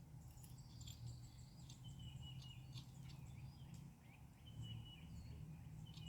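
Faint birdsong: many short high chirps and whistles, some held briefly on one pitch, over a low steady hum.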